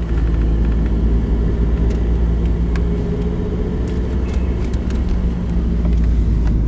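Car driving, heard from inside the cabin: a steady low drone of engine and road noise, with a few light clicks.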